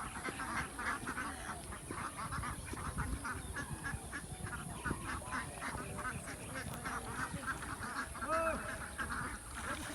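A flock of ducks quacking, many short calls overlapping without a break, with a few louder calls near the end.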